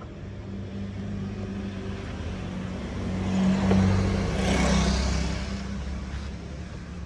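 A car engine running steadily, swelling louder for a couple of seconds around the middle, then easing back.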